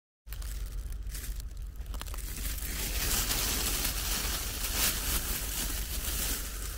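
Foil space blanket crinkling and rustling over a steady low rumble. It starts abruptly just after a moment of silence.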